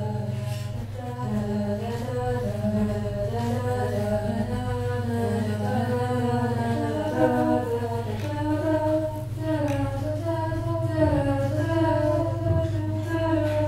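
Composed soundtrack of layered wordless singing voices holding and slowly shifting sustained notes over a steady low drone.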